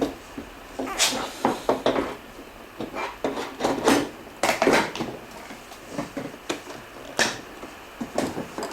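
Irregular knocks and clatters as the dishwasher's front panel is handled and fitted back onto the machine, with several sharp strikes clustered around the middle.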